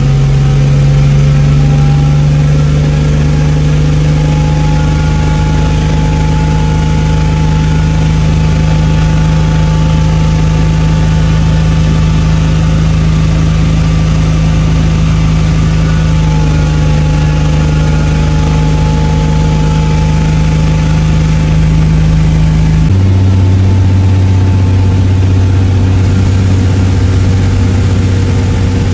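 MK3 Toyota Supra's turbocharged inline-six running loud at a steady speed, then dropping suddenly to a lower steady speed about 23 seconds in.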